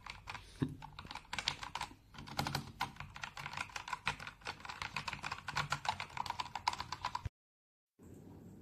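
Rapid typing on a K68BT mechanical keyboard with red linear switches: a fast, uneven run of keystrokes that stops about seven seconds in.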